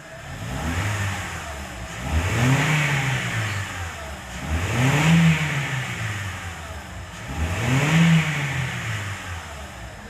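Honda Civic Hybrid engine revved four times in a row, each rev rising and falling back toward idle. It picks up smoothly with no rocker-arm knock: the stuck valve pause system rocker arms have been repaired and the misfire is gone.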